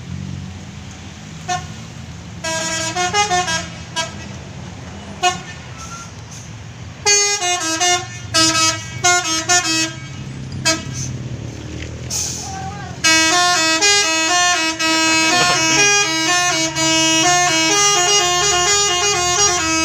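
Tour bus telolet horn, a multi-note air horn, playing a melody in short phrases and single toots, then a longer unbroken tune in the second half. A bus engine rumbles steadily underneath.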